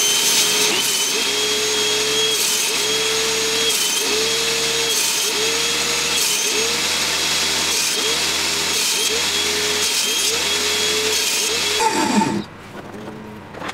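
Table saw running and crosscutting a hardwood strip into angled segments on a sledge jig, the motor pitch dipping briefly about once a second as each cut loads the blade. Near the end the saw is switched off and winds down, its pitch falling.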